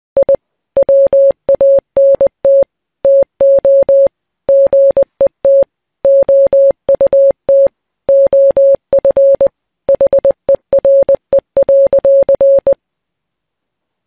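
Morse code sent as a single mid-pitched beeping tone, keyed on and off in a mix of short and long beeps grouped with pauses between letters. The beeping stops a little before the end.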